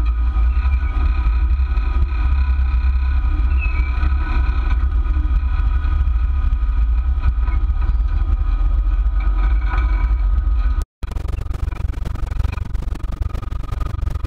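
Jeep engine running as the rig crawls slowly along a rocky trail, heard through a camera mounted on its hood: a steady deep rumble with a few faint, steady high tones above it. The sound cuts out for an instant about eleven seconds in.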